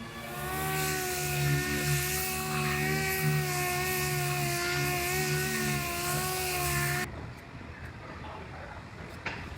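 Air-powered shop tool running steadily with a high whine over loud air hiss, cutting off suddenly about seven seconds in.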